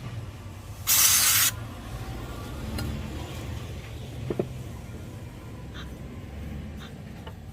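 A short burst of spray hissing about a second in, followed by a low steady hum with a few faint clicks.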